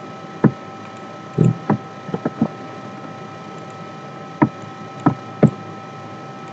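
Computer mouse and keyboard clicks, about nine short sharp clicks scattered through, several in quick succession, over a steady faint hiss and hum.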